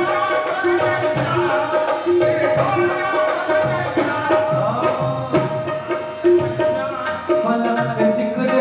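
Qawwali music: harmoniums holding and shifting sustained notes under singing voices, with steady tabla strokes driving the rhythm.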